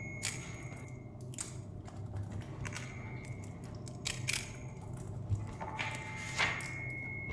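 Book and paper handling recorded as foley: a series of short, crisp clicks, snaps and rustles at irregular intervals, a few leaving a brief high ringing, over a steady low hum.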